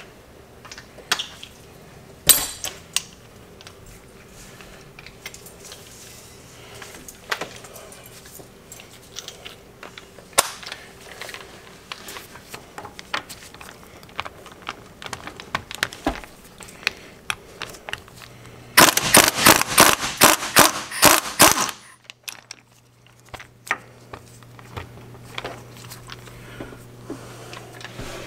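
Impact wrench hammering for nearly three seconds, about two-thirds through, breaking loose a tight, rusty 15 mm hub bearing bolt. Before it, scattered clicks and clinks of the socket and metal tools being fitted.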